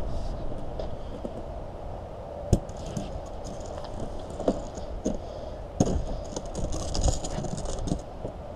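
Glass-handling knocks and clunks as a removed car windshield is carried and lowered into the back of a work van: several sharp knocks over steady background noise.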